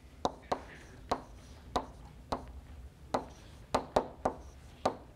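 Chalk writing on a blackboard: about ten sharp taps and short scratches at uneven intervals as the chalk strikes and drags across the slate.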